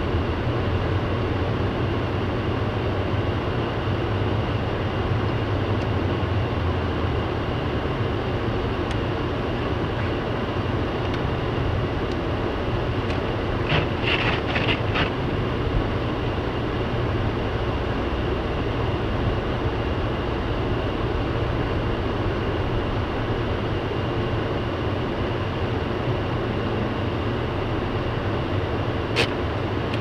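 Steady noise inside a car cabin driving slowly through snow: engine and tyres, with the heater fan blowing on full defrost. A few light clicks in the middle and one near the end.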